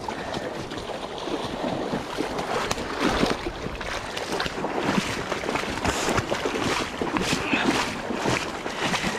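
River water rushing and splashing, with irregular splashes scattered throughout.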